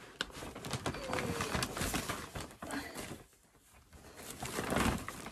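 Paper and plastic shopping bags rustling and crinkling as they are carried in and set down, in two busy stretches with a short lull a little after the middle.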